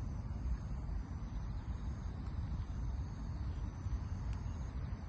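Wind buffeting the microphone as a gusty low rumble, with a faint steady insect trill high above it and a light tick a little past four seconds in.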